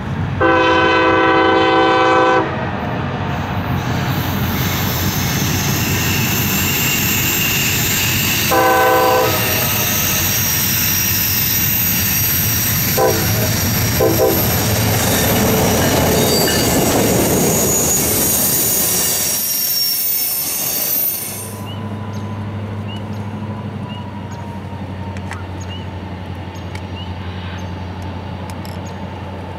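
CSX diesel locomotive sounding its horn as it approaches: one long blast about a second in, a shorter one near the tenth second and two quick toots a few seconds later, over its engine and rolling wheel noise, which grow louder as the train comes on. About two-thirds through, the sound changes abruptly to a quieter steady low drone.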